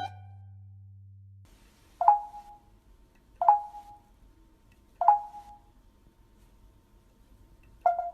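A small bell dinged four times, single strikes one and a half to three seconds apart, each ringing out briefly.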